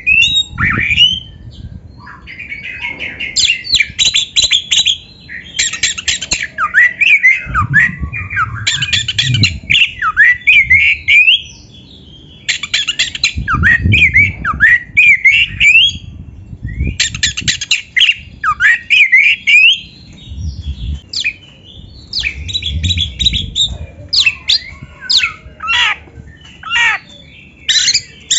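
Oriental magpie-robin (kacer) singing a loud, varied song in phrases of a few seconds each. The phrases mix rapid clipped notes with rising and falling whistles, separated by short pauses.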